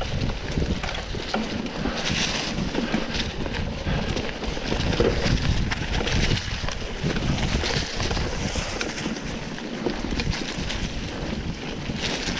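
Wind buffeting the microphone on a mountain bike moving along a dirt trail, with the tyres rumbling over the ground and frequent short rattles and clicks from the bike over bumps.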